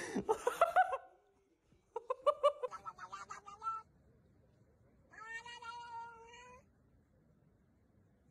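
Domestic cats meowing: a few bending meows in the first second, a quick run of short meows about two seconds in, and one long, steady meow about five seconds in.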